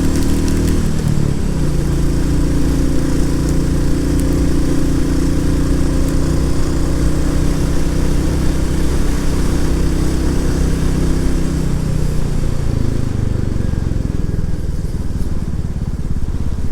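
Royal Enfield Classic 350's single-cylinder engine running steadily under way, over a haze of wind and road noise. About twelve seconds in, the engine note drops away as the bike eases off.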